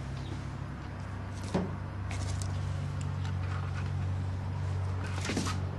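A steady low hum that grows stronger about two seconds in, with a few light clicks and taps, the clearest about a second and a half in and another near the end.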